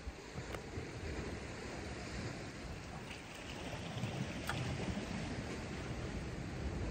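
Steady wind and gentle sea wash along a rocky shore, with a couple of faint clicks.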